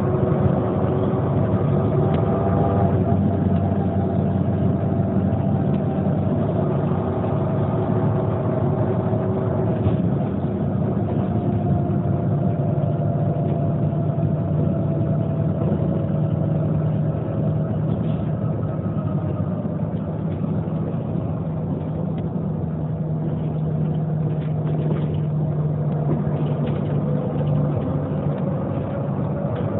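Neoplan N 4416 city bus's engine idling steadily while the bus stands still.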